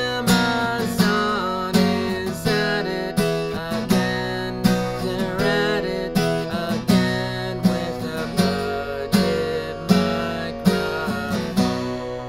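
Acoustic guitar strummed in a steady rhythm, with a man singing along, picked up by a small budget USB condenser microphone mounted on a laptop. Near the end a last chord is left ringing.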